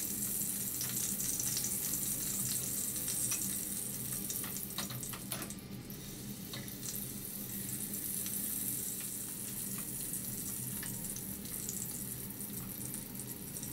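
Chunks of lamb frying in olive oil in a pot: a steady sizzle with scattered crackles, and a few sharp clicks of tongs as the pieces are turned and lifted.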